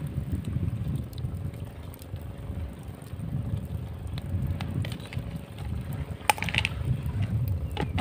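Wind buffeting the microphone in gusts, with a few sharp clicks and a brief scraping sound about six seconds in and another click near the end.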